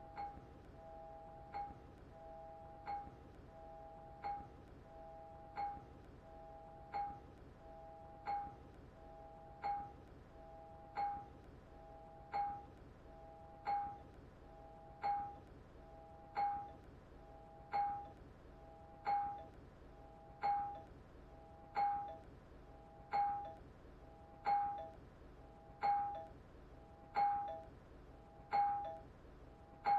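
Doorbell chime ringing over and over, about once every second and a half. Each ring is a two-tone chime with a sharp strike and a short decay, and the rings grow louder toward the end.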